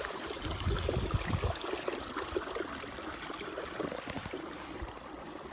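River current rushing and splashing against a kayak's hull. Gusts of headwind buffet the microphone as low thumps during the first second or so.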